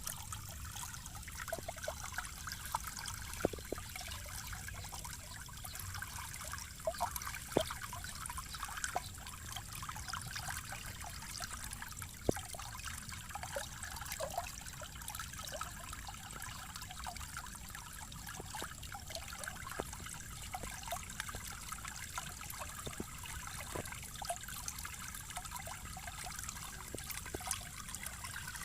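Flowing water trickling and splashing steadily, with many small irregular plinks and bubbling over a low rushing rumble.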